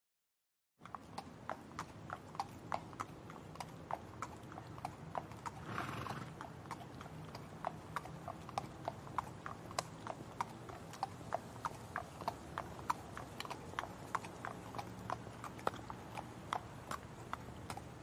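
Horse hooves clip-clopping at a steady pace, about four strikes a second, starting about a second in, with a brief breathy noise about six seconds in.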